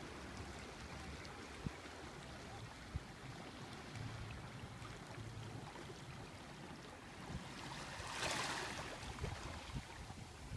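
Faint beach ambience: small waves lapping gently at the shore with light wind, and a louder wash about eight seconds in.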